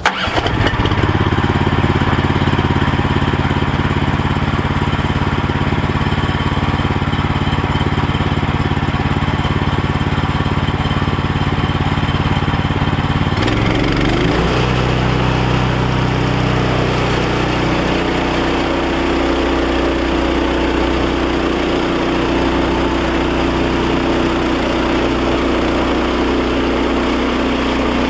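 Small gasoline engine of a portable bandsaw mill running steadily; about halfway through its note shifts abruptly to a different steady drone, as when the engine takes up load or changes speed.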